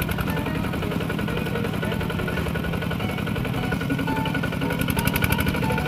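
Kubota RT120 single-cylinder diesel engine on a walk-behind two-wheel tractor running steadily with a fast pulsing beat, growing a little louder near the end, while the tractor is stuck in mud.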